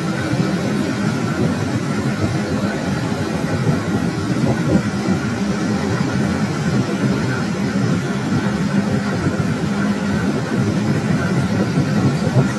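Metal lathe running under cut as the tool turns down a spinning steel workpiece, peeling off long curled chips: a steady machine drone.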